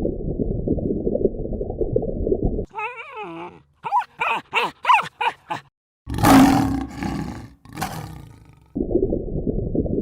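Wild animal calls. A low, rumbling growl is followed by a wavering pitched call and a quick run of about seven short rising-and-falling calls. A louder harsh, roar-like cry follows, and the low rumbling growl comes back near the end.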